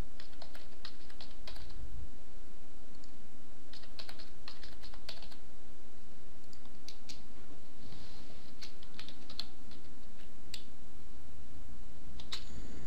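Typing on a computer keyboard: short runs of keystrokes separated by pauses.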